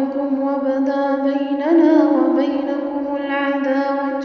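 A woman's voice reciting the Quran in a melodic chant, holding one long drawn-out note. About two seconds in it swells and turns upward in pitch.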